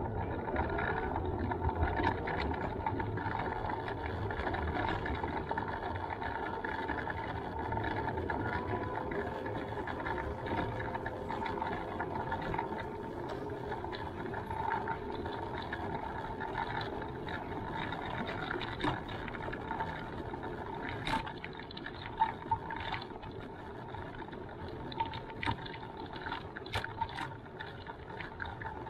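Steady whine of a small electric motor over a low rumble, with the pitch rising briefly as it starts off and then holding even. A few sharp clicks come in the second half.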